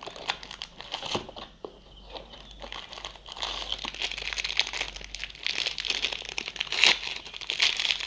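Clear plastic packaging crinkling as a bagged steel door hinge is handled, with small clicks and taps. It is sparse at first and turns into dense, continuous crinkling from about three seconds in.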